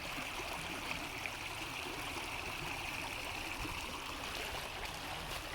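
Creek water rushing steadily, running fast and full like a small river.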